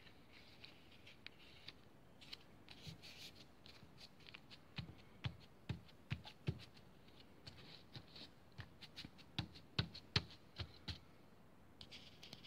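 Faint rustling and rubbing of paper as hands press a freshly glued paper cutout flat onto card. A run of short taps and pats comes in the middle, as fingers press it down.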